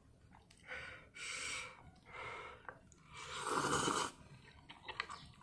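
A few short, noisy breaths, then a louder slurp of spicy instant noodles about three seconds in, lasting nearly a second.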